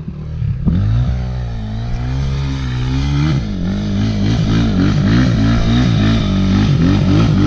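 Regulmoto dirt bike engine running under way. Its pitch climbs about a second in, then swings up and down quickly again and again as the revs rise and fall.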